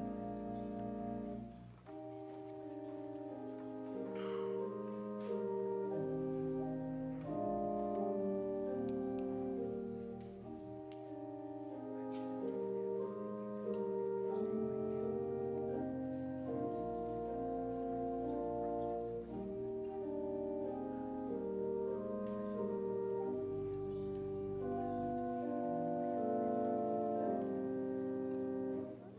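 Church organ playing a slow piece in held chords over long, low bass pedal notes, with a short break between phrases about two seconds in.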